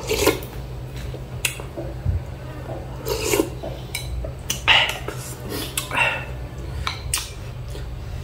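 A person slurping instant noodle soup from a spoon, about four slurps, with a few sharp clicks of a spoon and chopsticks against a ceramic bowl. A steady low hum runs underneath.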